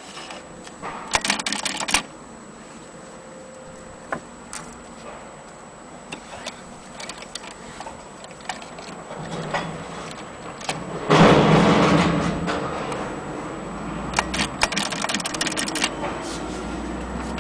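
1927 Mignon index typewriter being worked: scattered sharp clicks and quick clusters of mechanical rattling, with a louder, longer clatter about eleven seconds in.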